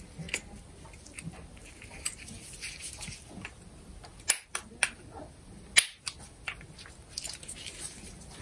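Small metal parts of an angle grinder's gearbox handled on a workbench during reassembly: scattered light ticks, with three sharper clicks about four to six seconds in.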